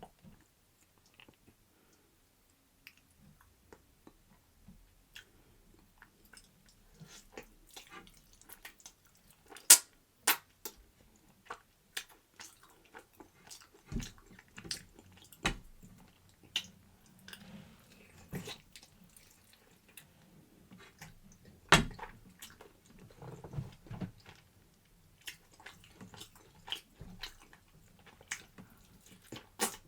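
A person chewing food close to the microphone: an irregular run of short clicks and mouth noises, with a few sharper, louder clicks about ten seconds in and again a little past twenty seconds.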